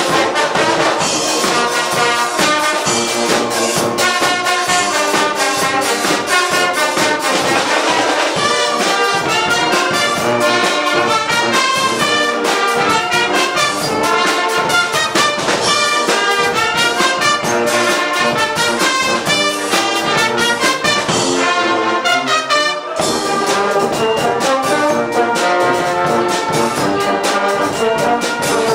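Guggenmusik band playing loud brass music, with trumpets and trombones over steady drum beats. The playing breaks off briefly about three quarters of the way through, then picks up again.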